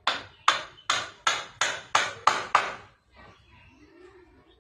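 Eight quick hammer blows, about three a second, that stop a little under three seconds in.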